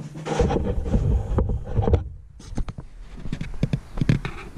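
Handling noise: a low rumble with a string of knocks and clicks, cut off briefly about two seconds in.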